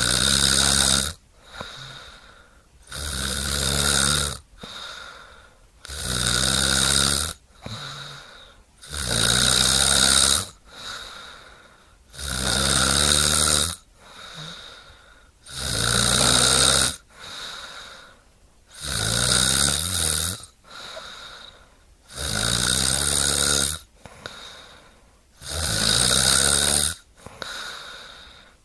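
Steady snoring: about nine loud snores, one roughly every three seconds and each lasting over a second, with a quieter breath between them.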